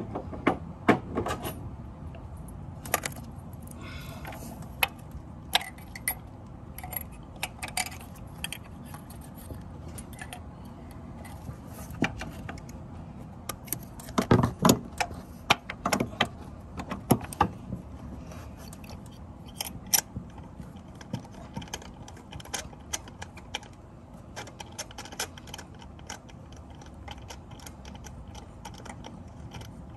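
Scattered light metallic clinks and rattles of a spark plug socket and extension being worked down into a plug well to start a new spark plug by hand, with a louder run of knocks about halfway through.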